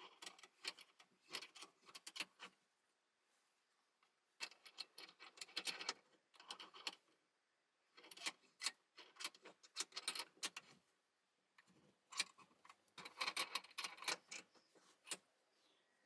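Rapid small metallic clicks and rattles in four bursts of about two to three seconds each, from a thin metal nameplate being handled and pressed in a small steel bench vice.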